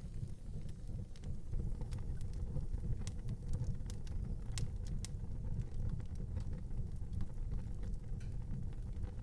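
Wood fire in an outdoor fireplace crackling, with irregular sharp pops several times a second, the loudest about halfway through, over a steady low rumble.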